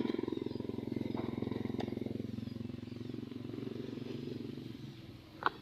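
A small engine, like a passing motorcycle, running steadily and fading away over about five seconds, followed by a short sharp click near the end.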